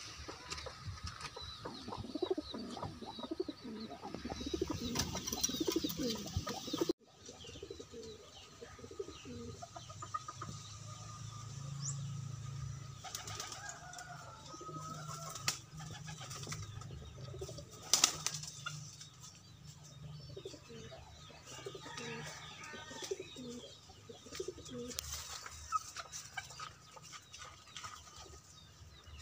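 Domestic racing pigeons cooing in low tones, with the flapping of wings now and then.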